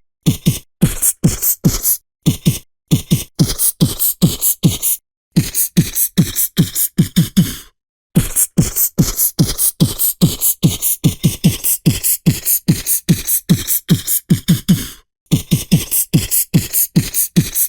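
Vocal beatboxing: a fast, steady rhythm of percussion made with the mouth, with deep kick-like thumps under sharper snare and hi-hat hits. The pattern drops out for a moment a few times and then picks up again.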